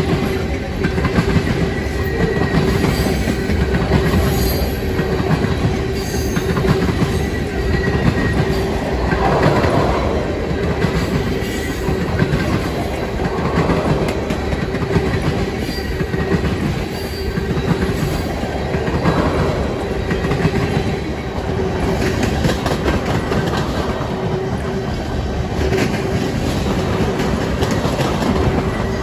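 Empty freight tank cars rolling past close by, their wheels clicking over rail joints in an ongoing rumble. A steady ringing tone runs through it, and the noise swells a few times as cars go by.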